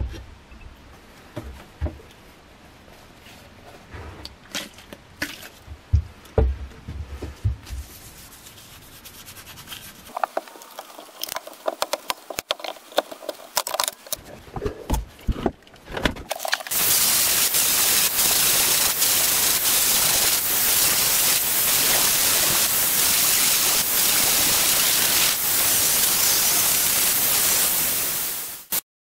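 Metal F-clamps being handled and set down on a wooden workbench, a string of separate clicks and knocks. After about sixteen seconds a power grinder takes over: the steel cleaver blade is pressed against it in a loud, steady grind that cuts off just before the end.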